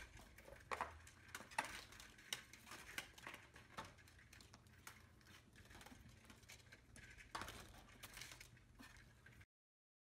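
Vertical window blind slats clattering and knocking against each other as a small pet pushes through and tugs at them: a run of light irregular clicks, stopping abruptly near the end.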